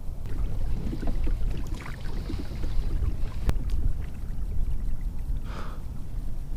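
Wind rumbling on the microphone on a fishing kayak, with small knocks and water sounds from the hull and gear. There is a sharp click about three and a half seconds in and a brief swish near the end.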